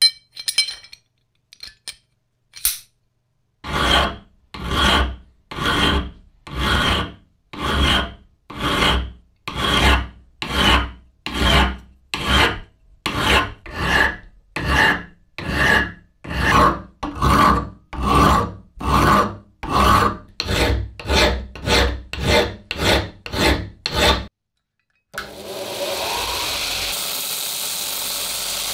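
Hand file rasping across a drop-forged steel adjustable-wrench part clamped in a vise, taking off the forging marks in about two dozen even strokes, about one a second and quickening near the end. Near the end a belt grinder runs with a steady noise.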